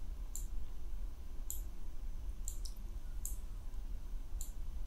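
Computer mouse clicking, about six short clicks spaced unevenly, over a faint low steady hum.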